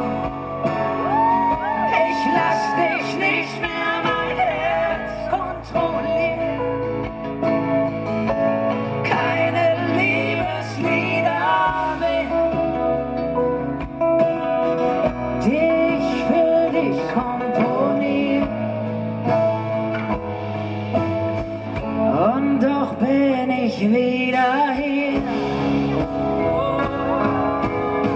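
Live pop band music with singing: steady held chords and a bass line under bending vocal melody lines, with no clearly sung words.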